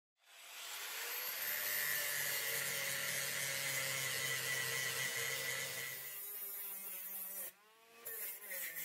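Electric angle grinder spinning up and grinding a steel bar clamped in a vise, a steady high whine with the hiss of the disc on metal. After about six seconds its note wavers, and it cuts off suddenly about seven and a half seconds in.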